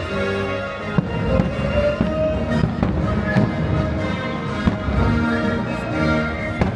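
Fireworks display: aerial shells bursting in several sharp bangs over the show's accompanying music.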